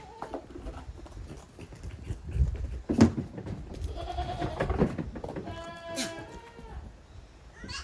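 Goat kids bleating: two drawn-out calls, one about four seconds in and another about a second later, just after a single sharp knock.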